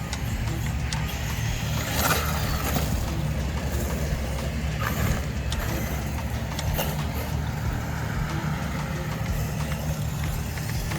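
Traxxas Sledge RC monster truck running, with a steady low rumble and scattered ticks, grinding a little.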